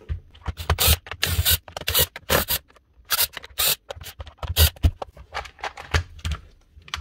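Hedge trimmer parts being handled and moved about on a workbench during disassembly: an irregular run of short scrapes and clicks.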